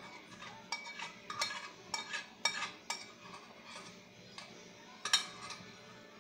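A metal spoon scraping and clinking against the inside of a cooking pot as thick sauce is scraped out: a run of sharp scrapes and knocks, irregularly spaced, the loudest about five seconds in.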